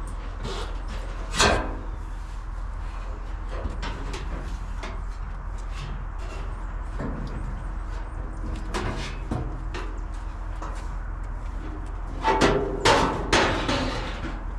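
A few sharp knocks and clunks: one about a second and a half in, fainter ones in the middle, and a quick cluster of three louder ones near the end, over a steady low hum.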